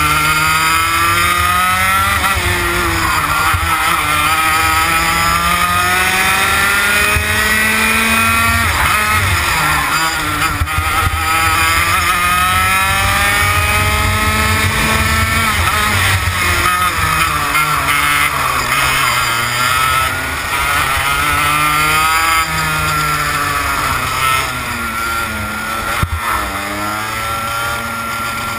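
TKM BT82 Extreme 100cc two-stroke kart engine running hard, its pitch climbing and dropping again and again as the kart accelerates and slows, a little quieter near the end.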